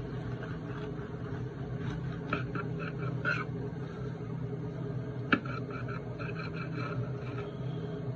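Knife sawing through a rolled flour-tortilla burrito in short, repeated strokes, with a sharp click a little past five seconds, over a steady low hum.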